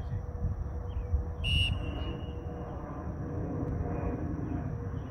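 One short, shrill referee's whistle blast about a second and a half in, over a steady low rumble of outdoor background noise with a faint steady tone.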